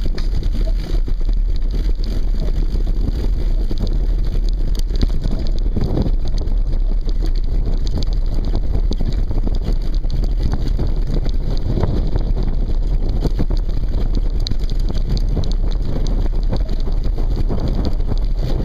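Steady wind noise on the microphone, with the rattle and irregular knocks of a mountain bike rolling over a rough dirt trail.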